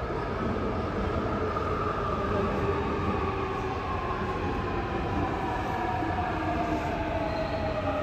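Seoul Subway Line 4 electric train running into the station and slowing, a steady rumble under a whine that falls slowly in pitch as it brakes.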